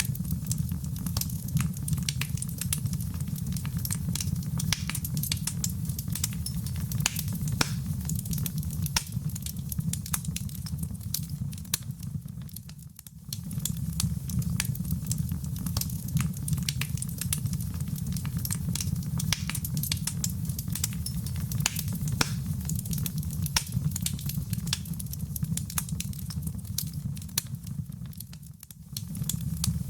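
Wood fire in a fireplace crackling, with frequent sharp pops and snaps over a steady low rumble of the flames. The sound dips briefly twice, about halfway through and just before the end.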